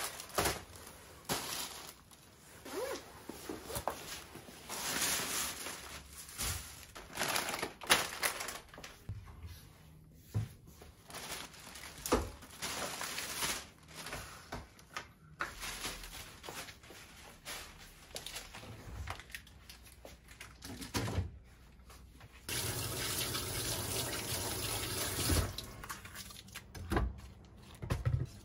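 Kitchen handling sounds: scattered knocks, clicks and plastic shopping-bag rustling as groceries are put away and a drawer is worked, then a few seconds of steady rushing noise near the end.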